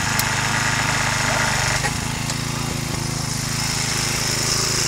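Small petrol engine of a hydraulic rescue-tool power pack running steadily, driving the rescue tool as it works on a car body.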